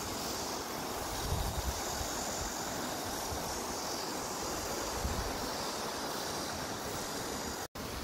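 Steady rushing noise of a mountain stream, with wind buffeting the microphone in low, uneven rumbles. The sound drops out for a moment near the end.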